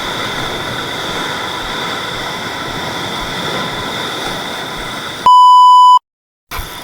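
Steady rushing noise of strong sea waves on a rocky shore, cut near the end by a loud, pure edited-in bleep tone lasting under a second, followed by a brief moment of dead silence.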